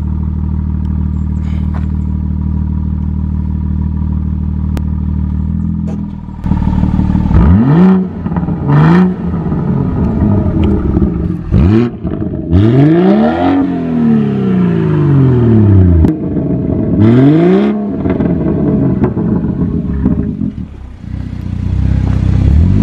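BMW 340i's turbocharged inline-six revved through its M Performance exhaust. About six quick blips rise and fall in pitch, some held a little longer, with crackles on the overrun between them. The first six seconds are a steady low drone.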